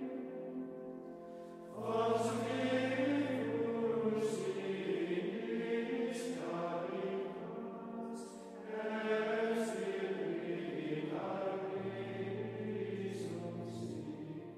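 Male choir of Benedictine monks singing plainchant, in long sung phrases with brief breaks between them.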